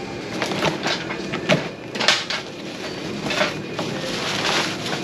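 A small parcel being unpacked by hand: rustling and crackling packaging with repeated short clicks and scrapes.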